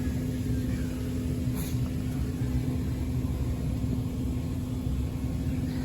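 Steady low rumble with a constant electrical-sounding hum from a running machine, and a faint click about one and a half seconds in.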